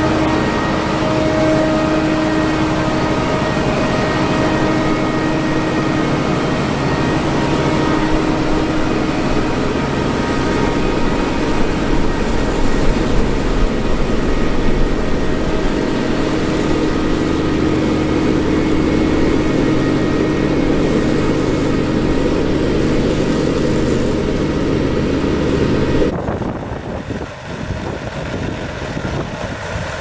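Dewulf Kwarto four-row self-propelled harvester running steadily as it lifts chicory roots: a low diesel hum under several steady whining tones from the machine. About 26 s in the sound cuts to a quieter harvester engine with wind rumbling on the microphone.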